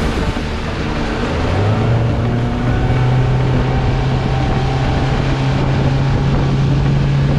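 Outboard motor pushing a small aluminium fishing boat under way; its pitch rises about one and a half seconds in as the throttle opens, then holds steady.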